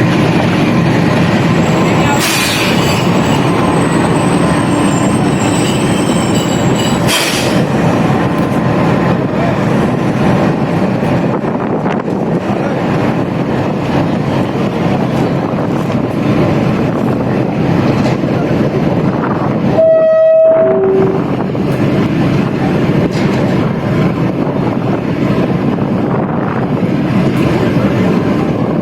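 Pakistan Railways train running, a steady loud rumble of wheels on track. About two-thirds of the way through, the rumble briefly drops out around a short two-note tone, the second note lower.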